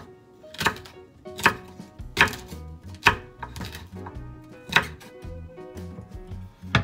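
Kitchen knife chopping food on a cutting board in slow, even strokes a little under a second apart, over background music.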